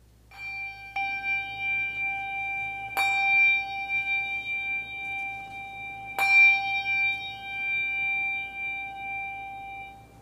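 Brass handbell rung with a few strokes, the two strongest about three and six seconds in. Each stroke renews a clear, steady high ring, which fades out near the end. It is rung to open the worship service.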